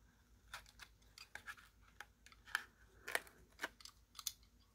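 Stanley utility knife blade slicing into a small cardboard box: a string of short, quiet scratchy cuts and clicks at irregular intervals.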